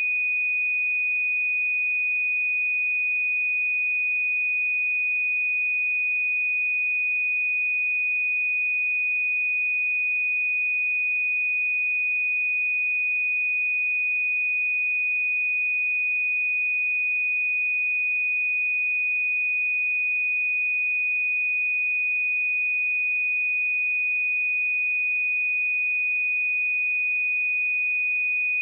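Pure 2481 Hz sine-wave test tone, a single steady high-pitched tone held at constant level.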